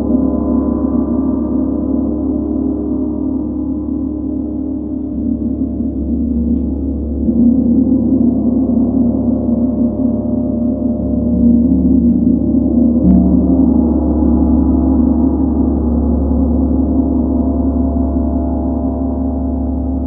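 Large Tibetan gong played with a soft mallet: a deep, sustained hum of many overlapping tones that keeps ringing. It swells louder about a third of the way in, then again past the middle after a fresh stroke.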